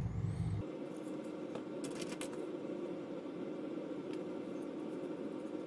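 Steady low machine hum, with a few faint clicks about two seconds in.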